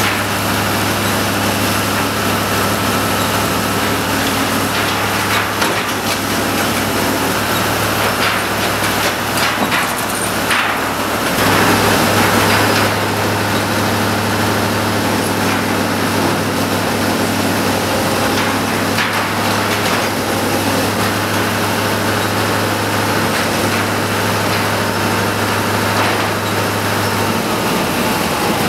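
Engine of a Menck M154 cable excavator running steadily close by, with a strong low hum whose note shifts as the clamshell grab is worked. A louder rush of noise comes about eleven seconds in.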